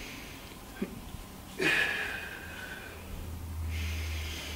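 A man breathing hard during a kettlebell windmill, with one sharp, forceful exhale about a second and a half in as he comes back up out of the movement, and quieter breaths before and after.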